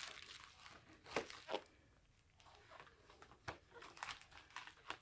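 Packaging being crinkled and torn by hand while unwrapping a mailed comic book, in short scattered rustles and crackles with a brief lull partway through.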